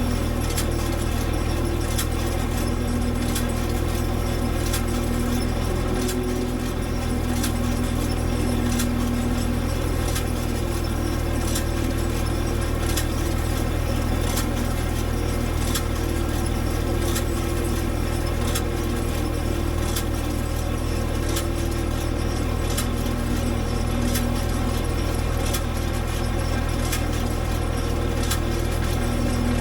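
International Harvester 706 tractor engine running steadily as it drives a John Deere 510 round baler, with frequent metallic clicks and rattles over the engine.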